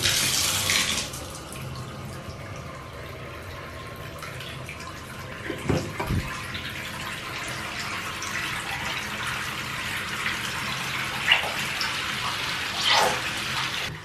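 Bath tap running, water pouring steadily into a filling bathtub; the rush is loudest in the first second. A brief bump comes about six seconds in.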